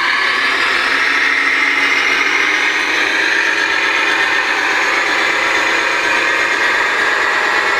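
RC King Hauler truck's onboard sound unit playing a steady diesel engine running sound as the electric truck drives slowly under the load of a heavy stone block.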